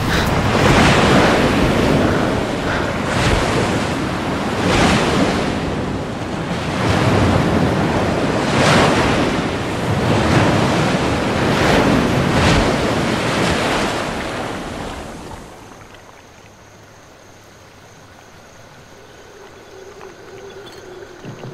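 Sea waves surging and breaking, loud swells coming every couple of seconds. About fifteen seconds in, the surf falls away to a much quieter hush.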